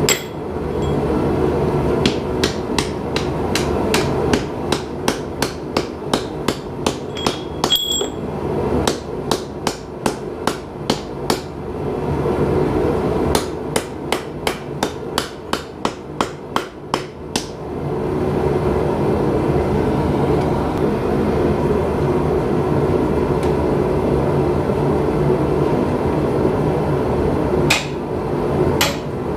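Hammer blows on hot steel at the anvil while forging a knife blade, a steady run of about two to three strikes a second with a short break, then a few more strikes near the end. A steady low rumble runs underneath.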